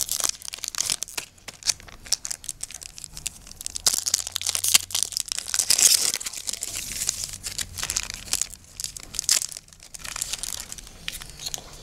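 Foil Yu-Gi-Oh booster pack wrappers being torn open and crinkled: a dense, irregular run of crackles and rustles.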